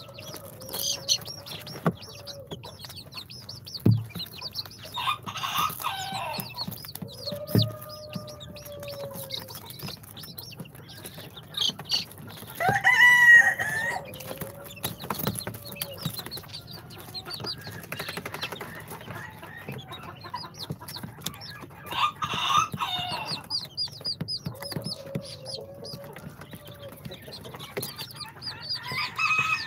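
A brood of young chicks peeping in quick, high chirps. Louder, longer chicken calls break in a few times, the loudest about halfway through, and there are a few soft knocks.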